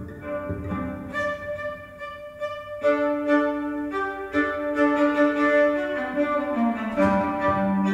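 Violin played with the bow: a melody of held notes, growing louder about three seconds in.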